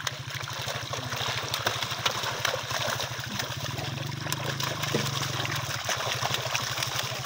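Many fish thrashing in shallow water inside a hauled-in net, a constant patter of small splashes. A motor runs steadily underneath with an even low throb.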